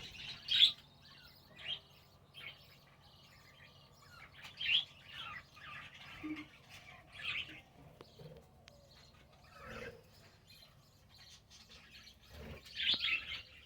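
Small cage birds in a breeding colony chirping in scattered short calls. The loudest chirps come about half a second in, around five seconds in, and near the end.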